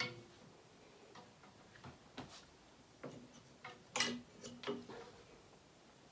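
Clothes hangers clicking and knocking against a wardrobe rail as garments are pushed along and lifted out, a few scattered light knocks with a small cluster about four seconds in.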